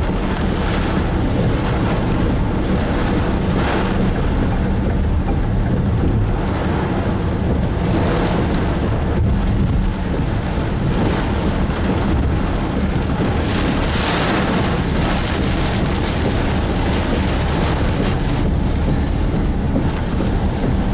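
Heavy wind-driven rain pounding a moving car, heard from inside the cabin over steady road noise; the rush swells briefly a few times.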